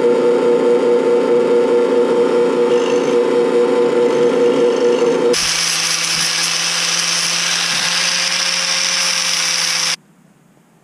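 WEN drill press running steadily as it drills through steel square tubing. About five seconds in, this gives way to an angle grinder grinding a small steel piece, a higher hissing grind that stops suddenly near the end.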